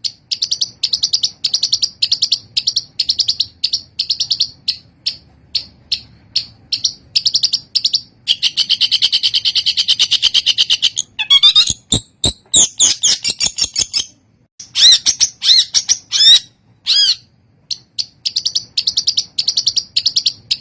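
Long-tailed shrike (Lanius schach) singing hard: fast runs of short high chips, a sustained buzzy trill about eight seconds in, a few sharp clicks, then loud rising-and-falling whistled notes before the chip runs return.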